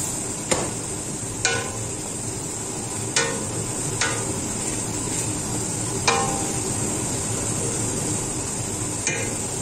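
A spoon stirring the simmering sofrito in a cooking pot, knocking sharply against it about six times, some knocks ringing briefly, over a steady hiss from the simmering pot.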